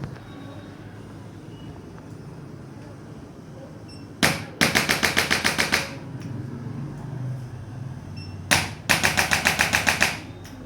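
Handheld percussive chiropractic instrument firing twice: each time a single sharp click, then a rapid, even train of clicks, about nine a second, lasting just over a second. The first comes about four seconds in, the second near the end.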